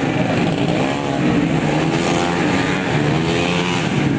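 Several tuned 131cc automatic racing scooters running hard together, their engine notes overlapping and their pitch arching up and down as they pass.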